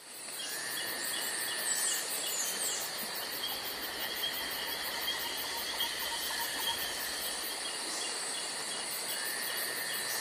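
Insects chirping in chorus: steady high trilling with a short chirp repeating a few times a second.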